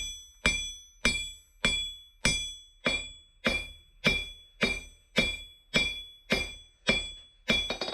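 Steady hammer blows on a VEVOR 66 lb London pattern anvil, about two strikes a second. Each blow leaves a clear ringing tone from the anvil that fades before the next.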